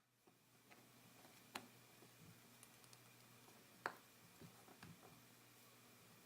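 Faint scattered clicks and light taps from a phone and small repair tools being handled, with two sharper clicks about a second and a half in and near four seconds in.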